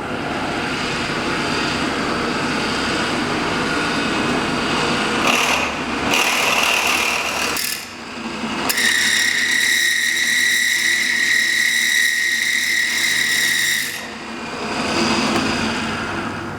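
Mini bench drill press running and drilling into metal, with a steady high-pitched whine for about five seconds in the middle before it eases off.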